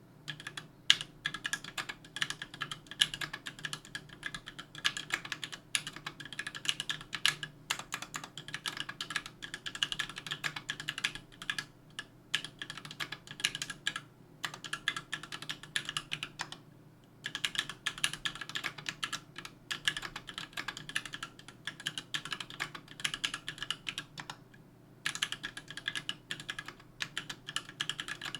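Typing on a 60% aluminium-case mechanical keyboard with JWK H1 linear switches and GMK keycaps: a fast, uneven run of keystrokes, broken by brief pauses, with an occasional louder keystroke.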